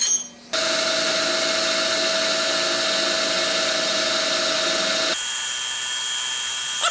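Optimum MB4 mill-drill running a 10 mm end mill that cuts a 1 mm-deep counterbore into a cast bearing block, a steady machine whine with cutting noise. It starts abruptly about half a second in, and its pitch changes about five seconds in.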